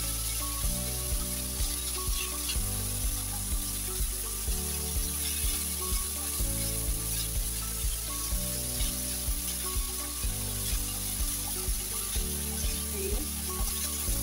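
Pork sizzling as it is stir-fried in a wok, with background music with a steady beat, about two beats a second, playing over it.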